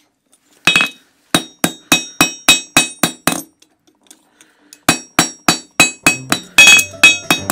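Hand hammer striking an iron horseshoe on an anvil, with sharp ringing metallic blows. A single strike comes first, then two quick runs of about eight to ten blows each at roughly three a second, with a short pause between them.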